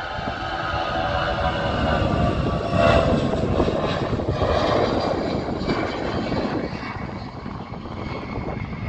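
Jet airliner's engines passing close by. Several whining tones fall in pitch as it goes past, loudest about three seconds in, then a rumble that slowly fades.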